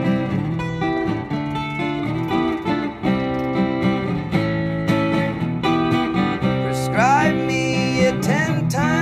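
Acoustic guitars strummed in a live instrumental break of a song, with a voice sliding in about seven seconds in.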